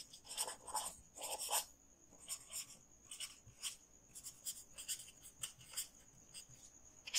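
Pen scratching on paper as a word is handwritten: a quick, irregular series of short, faint strokes.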